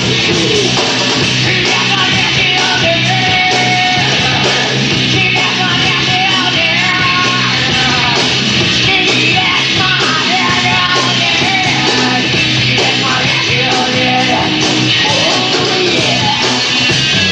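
A rock band playing live, loud and steady, with a voice yelling or singing over the band.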